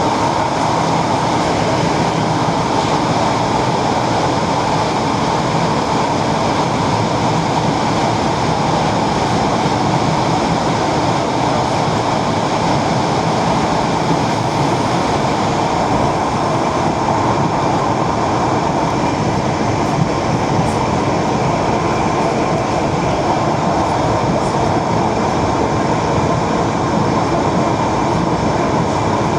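ED4M electric multiple unit running along the line between stations, heard from inside the train: a steady, even rush of wheel and running noise with no breaks.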